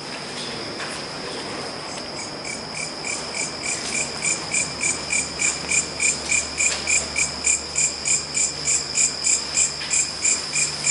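Night insects calling: a steady high-pitched cricket drone, joined about two seconds in by a louder rhythmic chirping, about three to four chirps a second, that grows louder.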